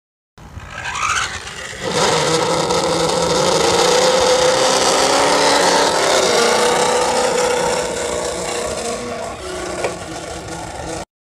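Small nitro RC car engine running at high revs, a raspy buzz holding a fairly steady pitch, with a brief rise about a second in; it cuts off suddenly near the end.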